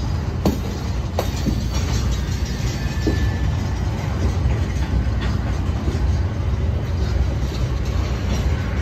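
CSX freight train of covered hopper cars rolling past: a steady low rumble of steel wheels on the rails, with a few sharp clanks in the first couple of seconds.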